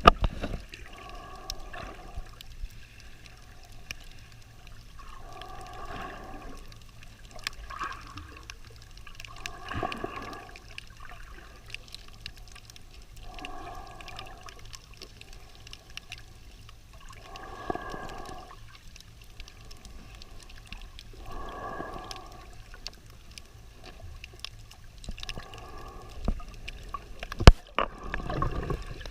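Breathing of a swimmer recorded underwater, one breath about every four seconds, with faint scattered clicks between them.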